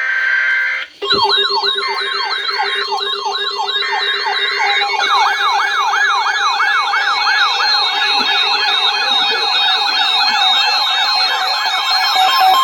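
A brief screech of data tones, then several electronic siren alarms wailing rapidly up and down and overlapping, over steady tones: the alarm of weather-alert radio receivers set off by a Weatheradio Canada alert broadcast.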